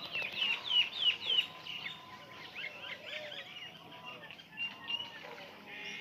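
Many small birds chirping together, a rapid stream of short falling chirps that is loudest in the first second and a half.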